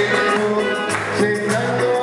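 Live music on a Yamaha electronic keyboard: held chords over a moving bass line, with a light percussion beat.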